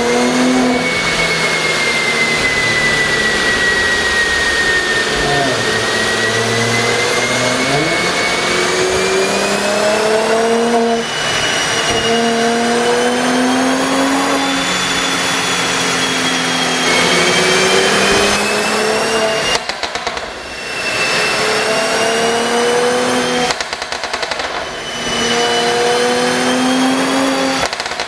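Mercedes-AMG C43's twin-turbo V6 engine and exhaust revving up and falling back several times. Rapid crackling pops sound each time the revs drop, about 11, 20, 24 and 28 seconds in: the overrun pops of an exhaust 'pop sound' tune.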